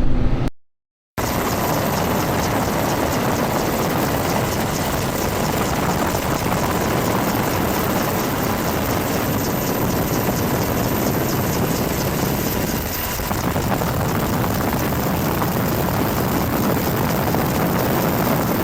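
Helicopter running steadily, its rotor and turbine making an even, continuous noise with a fast regular beat from the blades. A brief silent gap about half a second in.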